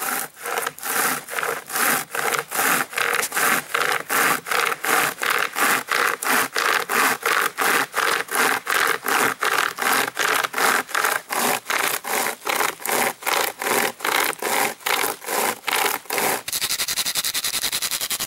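Pocket chainsaw, a cutting chain pulled back and forth by cord handles, sawing through a dead tree trunk in steady strokes, about three a second. Near the end the strokes turn quicker and shorter, then stop suddenly.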